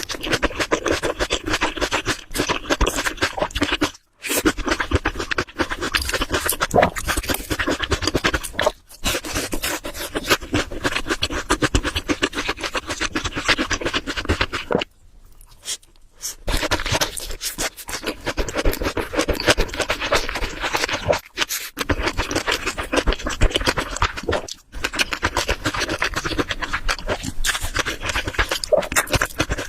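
Close-miked mukbang eating sounds: dense, rapid scraping and chewing noises in runs of several seconds, broken by short pauses every four to six seconds.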